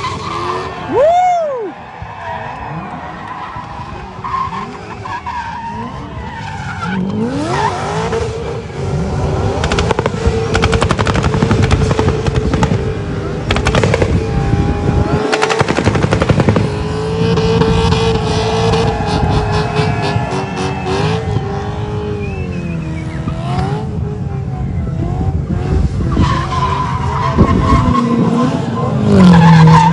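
A car engine revving hard and held at high revs with rapid crackling, and tyres squealing as in a burnout.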